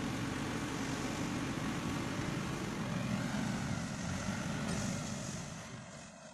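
Diesel engine of heavy road-construction machinery running steadily, then fading away near the end.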